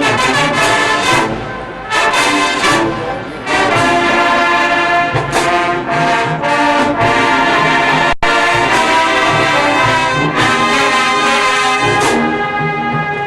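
High school band's brass section playing loud brass chords, short punchy hits in the first few seconds and then longer held chords, with a split-second break about eight seconds in.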